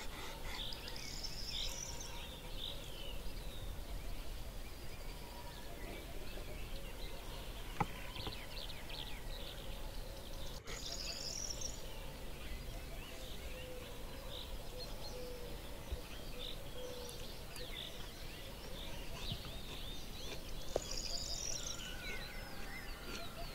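Several birds chirping and singing, with a couple of clicks of a steel knife and fork against a wooden plate.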